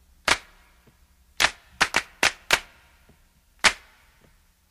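A series of seven sharp cracking clicks at irregular intervals, each dying away quickly, with a close cluster of four in the middle.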